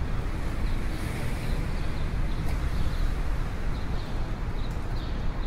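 Steady rushing whir of a running pedestal fan, with a few faint small rustles and clicks from a backpack being searched.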